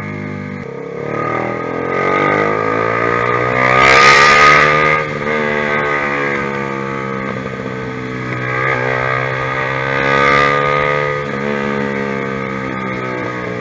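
Honda CBR150R's single-cylinder engine running through an aftermarket ProLiner TR1-R exhaust. The revs climb to a loud peak about four seconds in and drop off sharply near five seconds. They rise and fall again around ten seconds.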